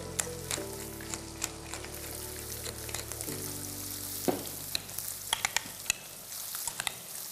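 Fish fillets frying in oil in a pan, a steady sizzle, with a few sharp clicks of kitchen utensils in the second half.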